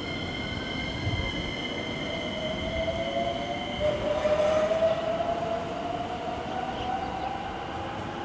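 JR West 225 series electric train pulling away and accelerating: the traction motors whine, rising steadily in pitch over the rolling noise of the wheels, loudest about halfway through.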